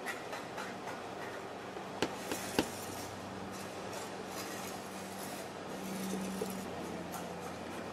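Steel scriber scratching a marking line into 0.3 mm brass sheet along a steel ruler, in short repeated strokes, with a few light metallic clicks about two seconds in.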